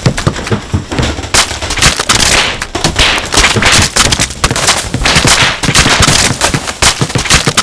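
Dozens of inflatable watermelon-print toy balls bouncing down wooden stairs and across a hardwood floor: a dense, fast run of overlapping bounces.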